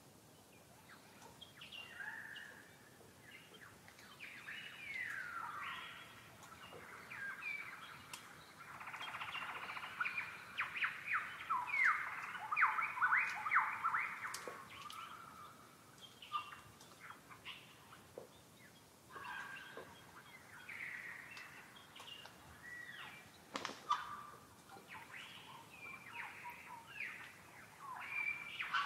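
Several birds singing and calling over one another, with short chirps and sliding whistled notes, busiest in the middle. A single sharp click comes about two-thirds of the way through.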